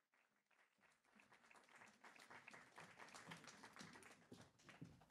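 Faint audience applause, a dense patter of hand claps that starts about a second in and grows fuller.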